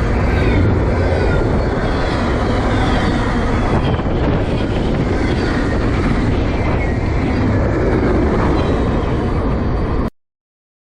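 Intermodal freight train rolling past, a loud steady rumble and rattle of wheels on rail. It cuts off suddenly about ten seconds in.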